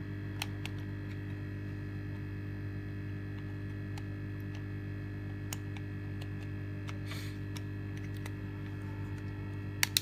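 Steady electrical mains hum, with a few light plastic clicks as the housing of a keypad mobile phone is pressed back together. A sharper double click comes near the end.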